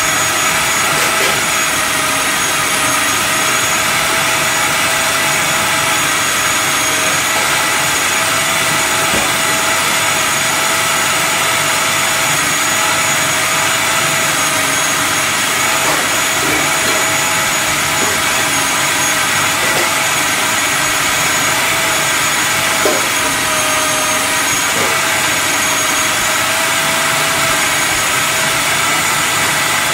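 Electric food processor's motor running steadily with a constant whine, its blade churning salted minced mackerel paste for pempek. One brief light knock comes about two thirds of the way through.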